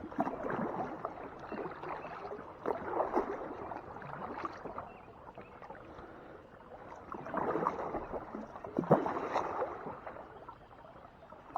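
Kayak paddle strokes in lake water: the blade splashing in and dripping in several uneven surges, with a sharp knock about three-quarters of the way through.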